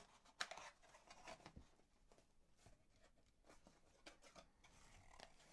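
Near silence, with a few faint taps and light rustles of hands handling a cardboard motherboard box, the clearest tap about half a second in.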